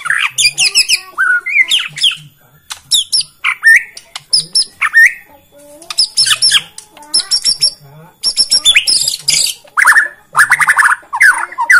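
White-rumped shama (Bornean murai batu) singing a loud, varied song: short phrases of rising and falling whistles, clicks and rapid chattering trills, broken by brief pauses, with a dense fast trill near the end.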